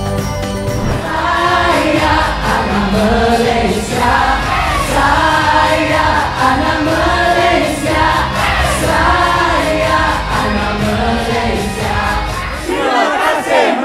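Choir singing arching phrases over instrumental accompaniment with a steady bass; the low accompaniment drops out near the end.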